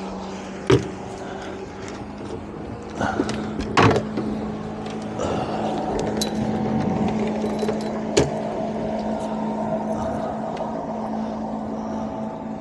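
Boat engines running: a steady hum throughout, joined about five seconds in by the drone of a passing motor vessel, which grows louder. There are several sharp knocks and clicks of rod and tackle being handled on the deck.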